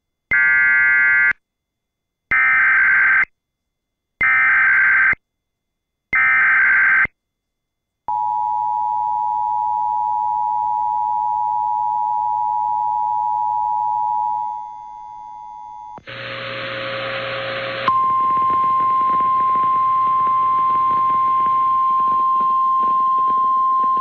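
Emergency Alert System tones. Four one-second bursts of warbling SAME header data are followed by the two-tone EAS attention signal, held steady for about six seconds before fading out. After about two seconds of radio hiss with a low tone, a steady single-pitched NOAA Weather Radio warning alarm tone sounds over background static.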